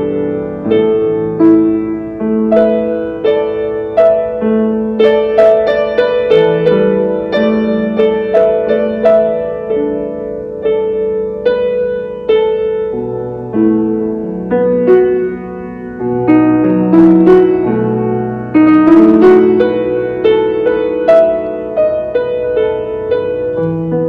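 A grand piano playing a solo piece. Chords and melody notes are struck about once or twice a second, each left to ring.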